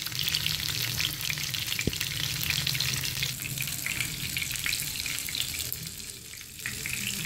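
Besan-battered fish shallow-frying in oil on a non-stick tawa: a steady, dense sizzling crackle that drops for a moment near the end.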